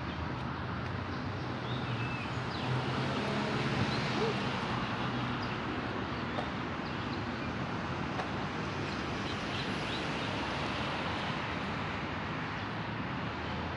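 Steady outdoor city-park background noise with the low rumble of distant traffic and a few faint bird chirps, picked up on a phone microphone; a light thud about six seconds in.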